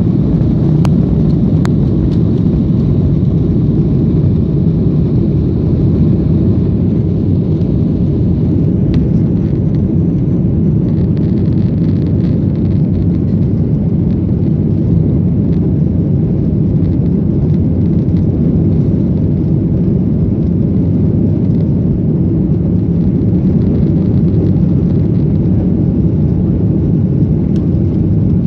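Airliner taking off, a loud, steady low rumble of engines and airflow that holds at one level without change.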